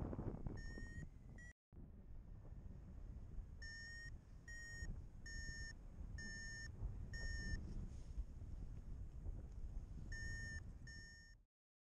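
Paragliding variometer beeping its climb tone: short high beeps at one steady pitch, under a second apart, which signal that the glider is in rising air. They pause for about two seconds in the middle. Wind rushes over the microphone underneath, and the sound cuts off suddenly just before the end.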